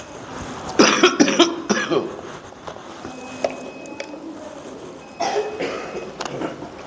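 A person coughing: a cluster of harsh coughs about a second in, and another short bout about five seconds in.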